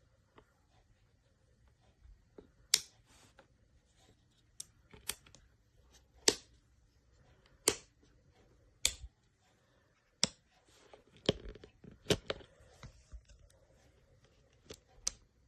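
Toggle switches on a wooden busy board being flipped, giving about a dozen sharp clicks at uneven intervals, some in quick pairs.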